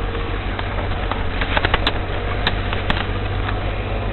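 Off-road vehicle engine running steadily at low revs, with a few sharp clicks and knocks about halfway through.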